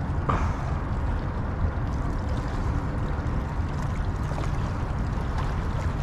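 Steady, gusting wind rumble on the microphone, with no voices.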